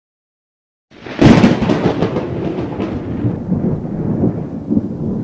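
A sudden loud crack about a second in, followed by a long rolling rumble that slowly dies down.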